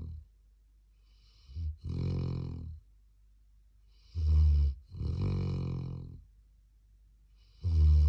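Young black Labrador snoring in its sleep, in a slow even rhythm about every three seconds. Each breath is a short snore followed at once by a longer, drawn-out one, with quiet between breaths.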